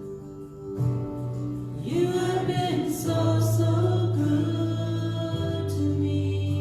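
Christian worship music: sustained chords, with a voice singing long held notes with vibrato from about two seconds in.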